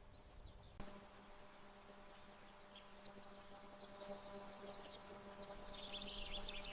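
Faint birdsong: scattered high chirps, then a quick falling trill near the end, over a faint steady hum.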